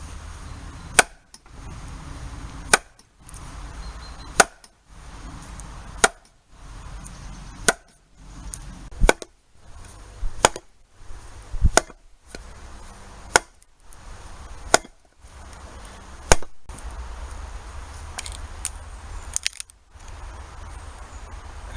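Sharp wooden blows, about one every second and a half, as a chunk of ash is struck to split it, with short breaks in the sound between blows. A few lighter knocks come near the end.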